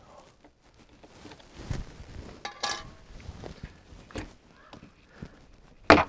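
Hand-work on an RV entry door lock as the old lock is taken off: scattered light knocks, clicks and short scrapes of metal and plastic parts, with one sharp clack near the end.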